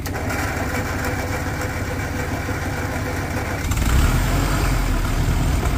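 Carbureted Massey Ferguson tractor engine running on its new carburetor, getting louder and heavier about four seconds in.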